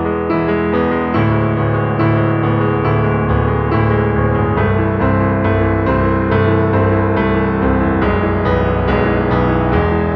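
Piano music with regularly struck chords, steady in loudness.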